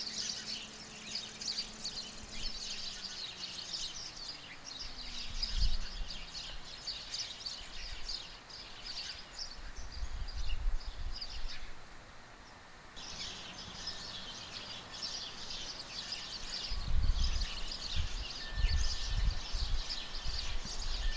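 Outdoor ambience of many small birds chirping rapidly and continuously, pausing for about a second roughly twelve seconds in. A low tone glides downward a few seconds in, and low rumbles, likely wind on the microphone, come and go, heaviest near the end.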